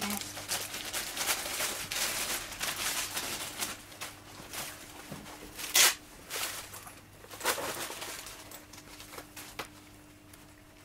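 Plastic wrapping bag crinkling and rustling as it is pulled open by hand, with a sharp tearing rip about halfway through and another smaller one a second and a half later.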